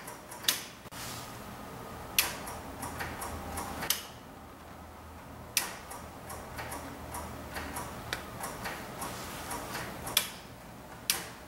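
Sharp clicks of a military diesel generator's start switch being flipped on and off repeatedly, a handful of clicks a second or two apart with lighter ticking between them. The switch is suspected faulty, passing only about 3 volts when placed in start.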